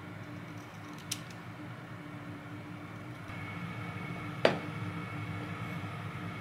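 A single scissor snip through label paper about a second in. Then the loudest sound: one sharp knock of a glass oil dispenser set down on a stainless steel counter. A steady low hum runs underneath.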